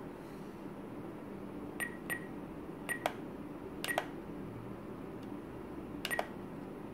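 Spektrum DX9 transmitter giving short beeps with clicks as its scroll wheel and buttons are worked in the servo travel menu, mostly in quick pairs around two, three, four and six seconds in.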